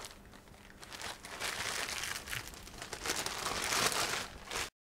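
Clear plastic piping bag crinkling as it is handled, in irregular crackles that build over the first few seconds and then cut off suddenly.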